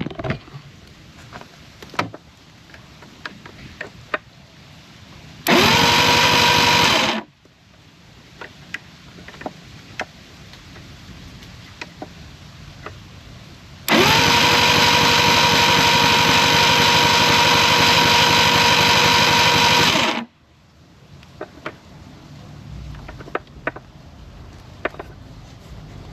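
Electric starter cranking the 1988 Evinrude 200 hp V6 outboard during a spark check on all six cylinders, twice. A short crank of under two seconds comes about five seconds in, then a longer one of about six seconds. Each whines up quickly to a steady pitch and cuts off suddenly, with light clicks of handling in between.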